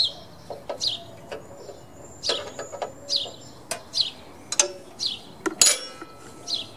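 A bird calling repeatedly in short falling chirps, about one a second, with sharp metal clinks of hand wrenches against the mower's steel between them.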